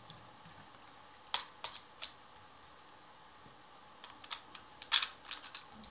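Sharp plastic clicks and taps from a GoPro in its clear housing being fitted onto the Joby Action Clamp's GoPro mount: three clicks over about a second early in, then a quicker cluster near the end, the loudest about five seconds in.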